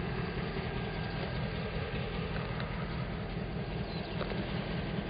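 CN diesel locomotive's engine running with a steady low rumble as the locomotive approaches in the distance.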